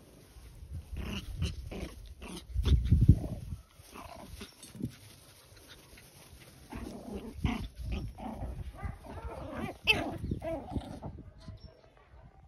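White Pomeranian puppies making small yips and growls as they play, with a brief low rumble about three seconds in.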